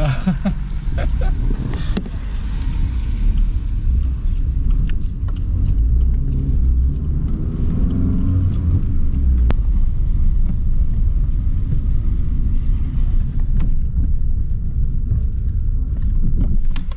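Car cabin noise while riding in a taxi: a steady low rumble of engine and tyres on the road, with one brief click about halfway through.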